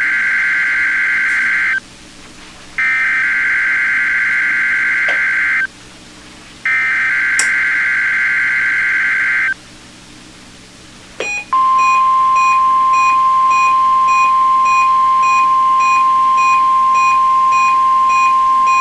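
NOAA Weather Radio Required Weekly Test tones: three bursts of SAME digital header data, each a shrill warbling screech of about three seconds with a second's gap between them, then about two seconds later the steady 1050 Hz warning alarm tone, with a fainter beep pulsing alongside it.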